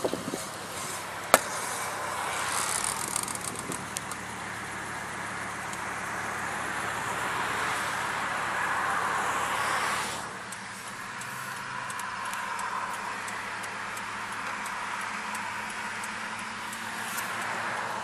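A vehicle wheel making an unexplained noise while rolling, over steady road noise that builds and then drops off about ten seconds in. A single sharp click about a second in.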